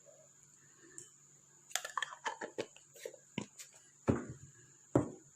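A spoon clinking quickly against the inside of a cup as honey is stirred into a hot herbal drink, about four or five light clicks a second for roughly two seconds. Then come two louder single knocks, a second apart, each with a brief ring.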